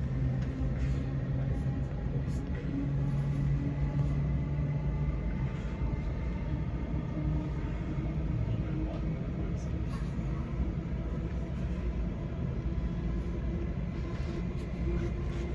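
Waratah A set electric train running, heard from inside the carriage: a rumble of wheels on track under the steady whine of its IGBT-VVVF traction inverters and motors. From about six seconds in, the whine rises slowly in pitch.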